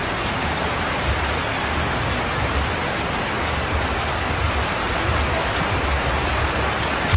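Steady, even rain-like hiss with an uneven low rumble underneath.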